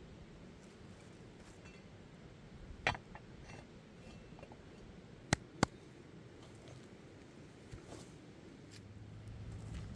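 A flat stone and a rebar stand being handled and set in place: a dull knock about three seconds in, then two sharp clicks a fraction of a second apart and a small tick later, over a steady quiet background.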